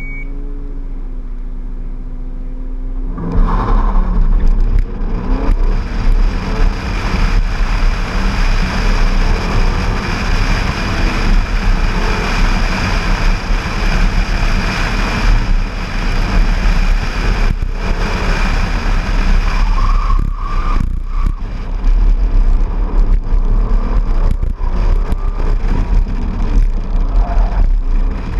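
A car's engine idling, then launching hard about three seconds in and running at full effort through an autocross run, with heavy wind rush on a microphone mounted outside the car.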